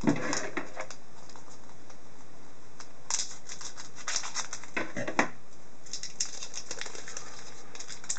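Hockey card pack wrapper being torn open and crinkled, and the cards inside being handled, in irregular clusters of short crackling rustles. The sharpest snaps come just after the start and about five seconds in.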